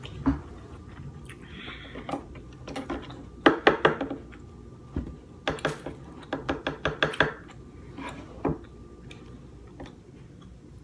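King crab legs and utensils handled on a plate: sharp clicks and cracks of shell and cutlery, in a quick cluster a few seconds in and a longer run of about a dozen near the middle.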